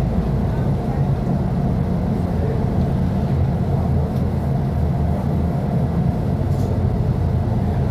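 Mercedes-Benz O500U city bus's diesel engine running steadily, a continuous low rumble.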